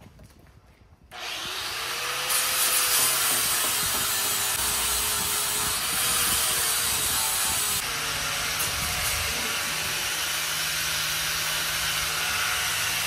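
Corded power grinder with a grit sanding disc grinding down a fibreglass boat hull. It starts up about a second in, then runs with a harsh scraping and a motor pitch that wavers as the disc bears on the hull.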